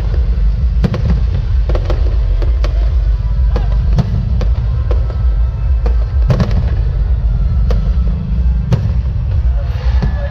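Aerial fireworks shells bursting: sharp bangs and crackles at irregular intervals, about one or two a second, over a continuous low rumble.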